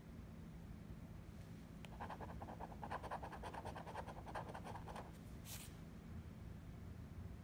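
A coin scraping the coating off a paper scratch-off lottery ticket in quick, rapidly repeated strokes from about a second and a half in to about five seconds in. A short hiss follows, and a low steady hum runs underneath.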